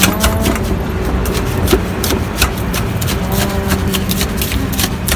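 Wire whisk knocking and scraping against a stainless steel cup as it mashes avocado flesh, in quick irregular clicks. A steady engine hum runs underneath.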